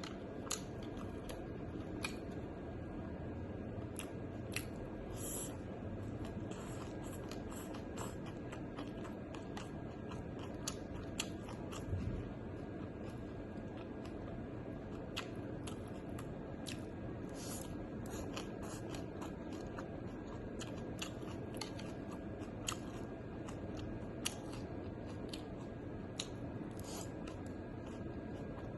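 Close-up eating sounds: a person chewing food, with many sharp, irregular crunchy clicks over a steady background hiss.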